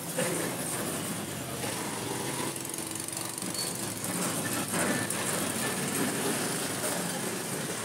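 Steady street traffic with small engines running close by.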